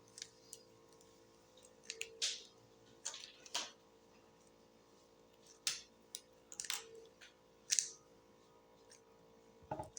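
Rubik's cube layers being turned by hand: faint, quick clicks and clacks coming irregularly, a few close together, with short pauses between.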